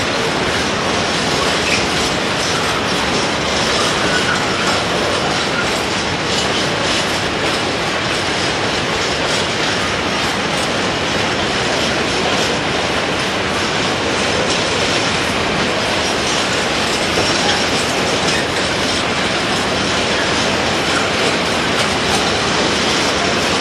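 Train rolling on the rails: a loud, steady wheel-and-track noise with clacking over rail joints.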